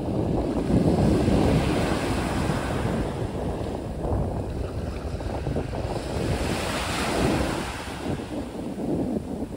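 Small sea waves breaking and washing up over a sand-and-pebble shore in a continuous surf wash, with the hiss of one wave's wash swelling about seven seconds in.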